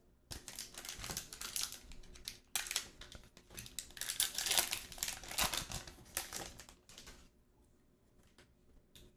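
Hockey card pack wrapper being torn open and crinkled, a stretch of rustling lasting about seven seconds, loudest in its second half.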